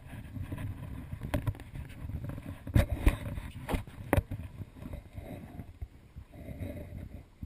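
Footsteps knocking on a wooden walkway, a few sharp knocks near the middle, over a low rumble of movement on a chest-mounted GoPro.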